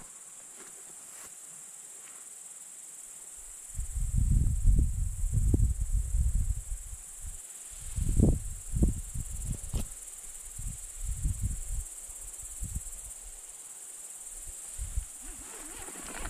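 Insects chirring steadily, a high thin hiss that runs unbroken. From about four seconds in, low irregular thuds and rumbles of footsteps and a jostled hand-held microphone on a dirt track cover it, loudest in clusters around four to six seconds and again near eight and ten seconds.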